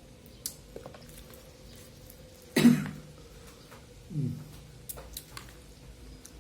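A man coughs once, sharply, about two and a half seconds in, then makes a short throat-clearing sound that falls in pitch a second and a half later, amid faint small clicks of eating. The cough comes while he is eating a very spicy chili-sambal fried chicken.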